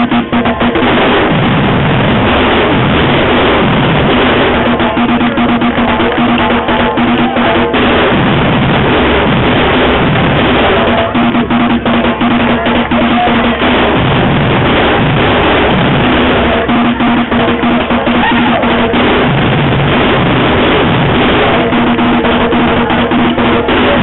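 Afro-Brazilian street percussion band playing a loud, dense, steady drum groove, with bass drums and snares. A held pitched note sounds over the drums in stretches of a few seconds.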